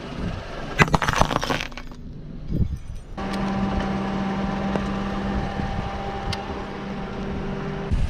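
Something brittle crunching and cracking as a car tyre rolls over it, a rapid cluster of cracks about a second in. From about three seconds the car runs steadily with a low hum.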